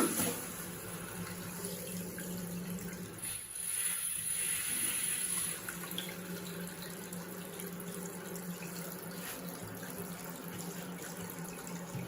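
Toilet cistern refilling through a newly fitted float fill valve: a steady rush of water with a low hum, starting abruptly. It swells for a couple of seconds around four seconds in, with a faint high whistle, then settles to an even flow. The valve replaced one whose filling was very loud.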